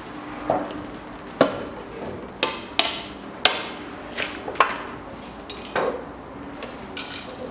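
Irregular sharp clicks and knocks, about ten of them, from a container of transmission fluid being handled and opened.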